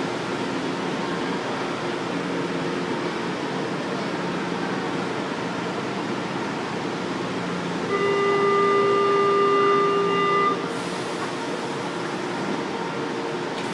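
Metro train standing at the platform with a steady hum from its equipment. About eight seconds in, a steady electronic warning tone sounds for about two and a half seconds, the signal that the doors are about to close, and a brief hiss follows it.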